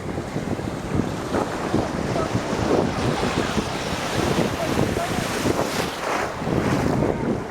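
Wind buffeting the microphone over the rush and splash of sea water as a boat rides through waves.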